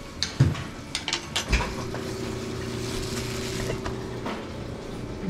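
Several sharp clinks of dishes and serving utensils at a buffet counter, followed by a steady mechanical hum with a faint hiss that lasts about two and a half seconds and then stops.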